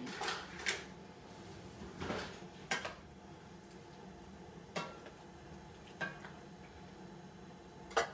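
Kitchen utensils clinking against dishes, with a couple of short scrapes; single clinks come every second or two.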